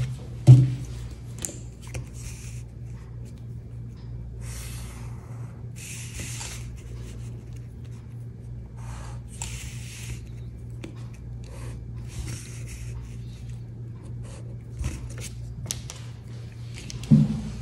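Paper and card rustling and sliding over a notebook page in several short bursts, over a steady low electrical hum.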